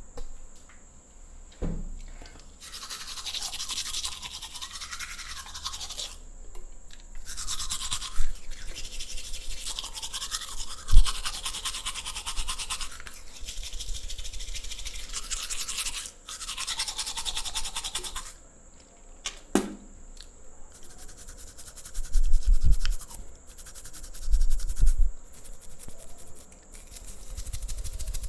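Teeth being brushed with a toothbrush: bouts of rapid scrubbing strokes lasting several seconds each, with short pauses between them. A sharp click comes about two-thirds of the way through, and a few low bumps follow near the end.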